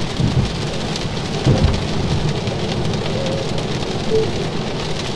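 Heavy rain drumming steadily on a car's roof and windshield, heard from inside the cabin, with the low rush of tyres on a wet road beneath it.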